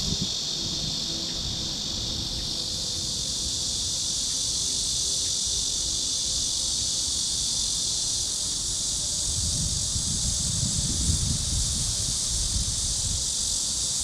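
A steady, high-pitched chorus of insects trilling without a break, with wind gusting on the microphone as a low rumble that strengthens in the second half.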